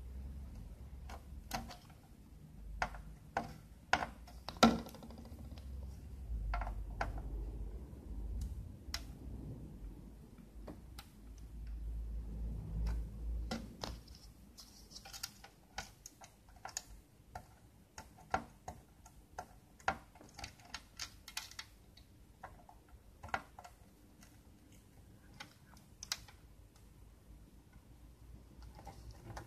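Irregular light clicks and taps as a soldering iron and solder wick are worked against old solder joints on a through-hole circuit board during desoldering. A low rumble runs under the first half, and the sharpest click comes about four and a half seconds in.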